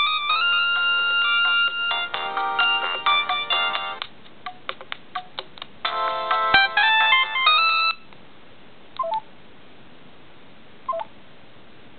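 LG A100 mobile phone playing a ringtone melody of several notes at once through its small speaker. The tune stops about eight seconds in, followed by two short beeps a couple of seconds apart.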